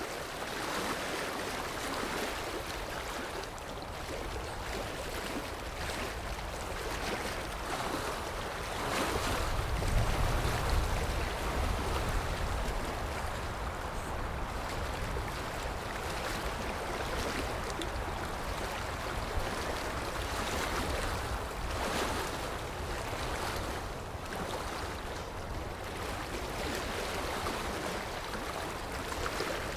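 Sea waves washing in and receding, a steady surf with slow swells and one stronger, deeper surge partway through.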